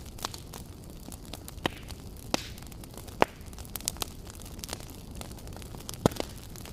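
Logs burning in a fireplace: irregular crackles and sharp pops over a steady low rush of the flames, with a few louder pops scattered through.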